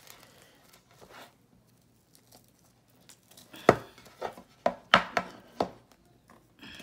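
Cardboard phone box being handled during an unboxing: faint rustling, then a quick run of about seven sharp knocks and taps over two seconds.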